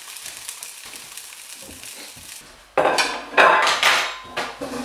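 Slices of black pudding frying softly in a pan with a faint crackle. From about two and a half seconds in, louder clattering of a plate and cutlery handled on a kitchen worktop.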